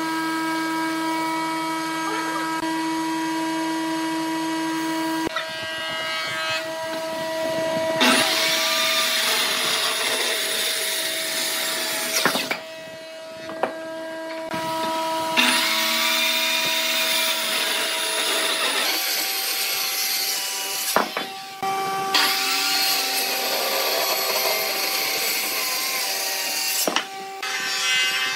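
Woodworking power tools and shop machinery running: a steady motor hum with spells of rougher sawing or planing noise, the sound changing abruptly every few seconds.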